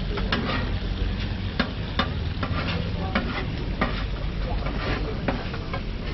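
Chopped pork sizzling on a hot steel flat-top griddle, with a metal spatula clinking and scraping against the plate a few times a second.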